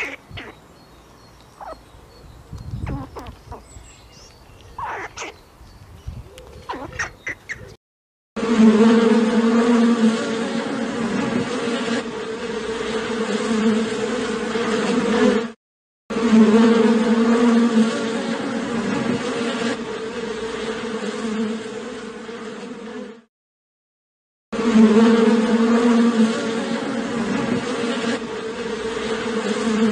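Honeybees buzzing en masse at the hive entrance: a dense, steady drone with a low hum. It begins suddenly about 8 seconds in and cuts out briefly twice. Before it there are only faint scattered clicks.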